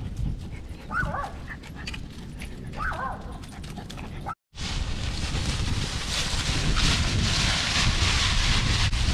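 A miniature schnauzer whimpers twice, short high whines about a second and three seconds in. After a sudden cut, steady rustling of dry fallen leaves as the dogs walk and sniff through them.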